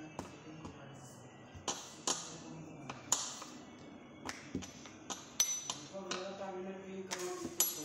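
Sharp, scattered knocks and taps of sugar paste and a rolling pin being handled on a worktable, about eight in all. A couple of them have a short high metallic ring.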